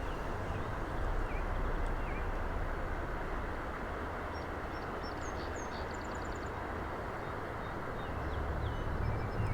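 Small birds chirping faintly, short downward-gliding notes with a quick trill about halfway through, over a steady rushing noise.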